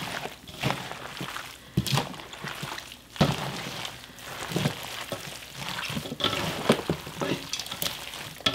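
Gloved hands tossing yeolmu and eolgari kimchi in a stainless steel bowl: wet squishing and rustling of leaves and stalks coated in chili seasoning, with a few sharper thumps, the loudest about two and three seconds in.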